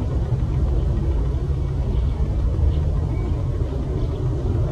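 Steady low rumble of an Airbus A330's twin jet engines at takeoff power as the airliner climbs away.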